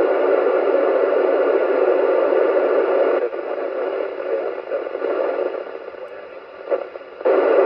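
FM receiver hiss from a Yaesu HF/VHF/UHF all-mode transceiver's speaker, squelch open, tuned near 437.80 MHz to the ISS repeater downlink. This is the noise of a weak satellite signal on a low-angle pass. The hiss eases and turns patchy about three seconds in, drops low near the end, then swells back loud.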